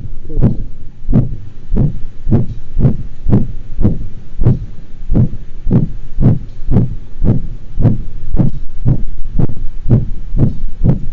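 A dog's heart sounds, beating regularly about twice a second, with a systolic ejection-quality murmur and a very faint diastolic murmur after each beat. This to-and-fro murmur is usually the result of a narrowed aortic or pulmonic valve that also leaks.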